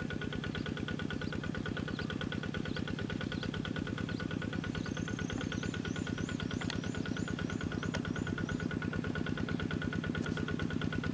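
A two-wheel walking tractor's single-cylinder diesel engine running at a steady chug, working in a flooded rice paddy. In the middle a bird gives a quick run of about ten short chirps.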